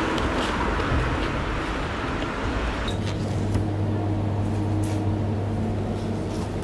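Steady low background rumble with no clear events. About three seconds in, the higher noise falls away and leaves a steady low hum.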